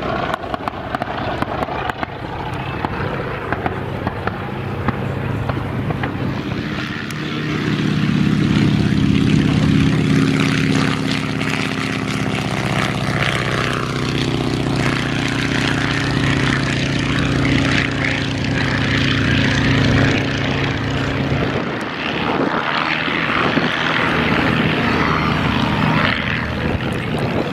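Propeller aircraft engine sound: at first a more distant light-plane drone, then a PT-17 Stearman biplane's radial engine droning loudly as it passes low, dropping slightly in pitch as it goes by. After that the drone fades back to a more distant, noisier engine sound.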